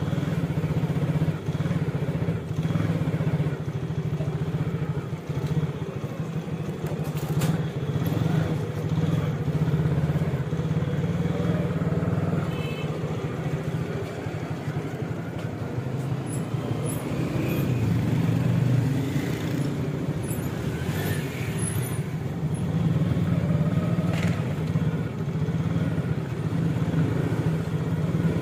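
Road traffic in a busy town street: cars and motorcycles running past, over a steady low engine drone.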